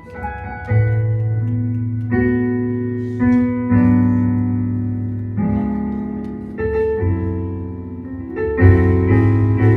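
Piano or electric keyboard playing slow, sustained chords over a deep bass.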